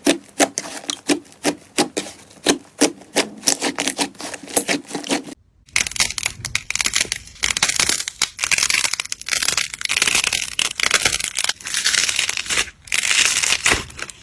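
Slime being squeezed and poked close to the microphone: a quick run of sharp sticky pops and clicks. After a brief cut about five seconds in, there is dense crunchy crackling.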